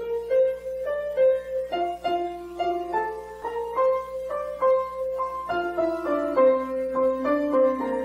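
Piano music: a melody of single notes, about three a second, with a lower line of notes joining in about five and a half seconds in.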